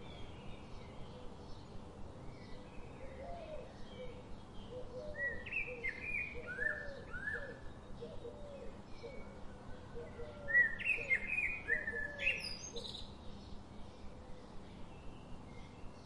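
Birds singing: bursts of quick high chirps and warbles about five seconds in and again, louder, about eleven seconds in, with a lower repeated note underneath. A faint regular ticking runs beneath at about three times a second.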